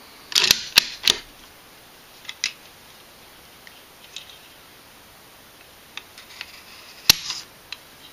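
Mosin-Nagant rifle with a Timney trigger being dry-fired on a mechanical trigger-pull gauge: a few metallic clicks of the bolt being worked to cock it, faint ticks as the gauge takes up the pull, then near the end one sharp snap as the trigger breaks and the firing pin falls on an empty chamber.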